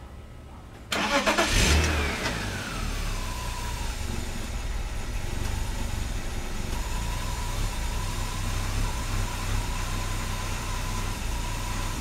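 1997 BMW M3's straight-six engine cranked and started about a second in, the revs flaring and then settling to idle, with a high whine that falls in pitch as the revs drop and then holds steady. The idle is still rough and lumpy even with a new oxygen sensor fitted.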